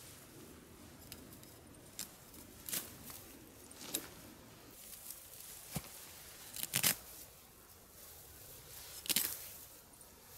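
Scattered sharp clicks and scrapes, one every second or two, the loudest a double click near the middle and another near the end, over the steady rush of a river.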